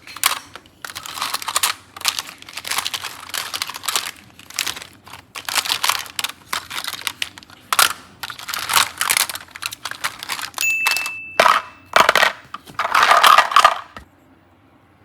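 Slime being squeezed and worked by hand, giving repeated crackly, crinkly squishing bursts. A brief high beep-like tone sounds about two-thirds of the way through, and the handling stops shortly before the end.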